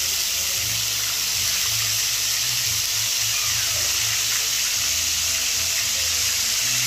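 Fish slabs and small fish pieces sizzling steadily in hot oil in a frying pan as more pieces are dropped in.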